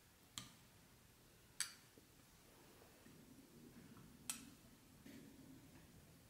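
A metal spoon clinking lightly against a stemmed glass dessert cup three times, each a short ringing tick, while the last of a matcha tiramisu is scooped from the glass.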